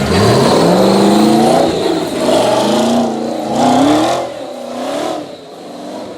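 Off-road 4x4 vehicle's engine revving hard, its pitch sweeping up at the start and then rising and falling several times as the throttle is worked, easing off about four seconds in.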